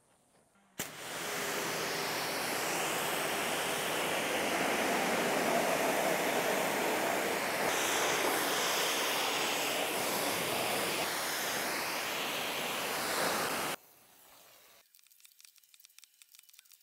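Kranzle pressure washer jet spraying water onto a car to rinse off foam: a steady, loud spray hiss that starts abruptly about a second in and cuts off sharply near the end, followed by a few faint clicks.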